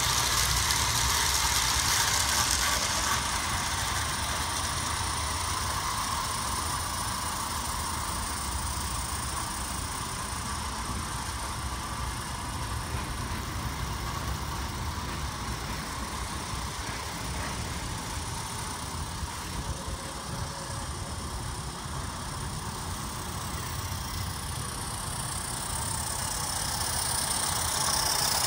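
Large-scale model train running on its track: metal wheels rolling and clattering along the rails under a long string of passenger and coal cars. It is louder at the start and again near the end as the train passes close by, and fainter in the middle while it runs along the far side of the loop.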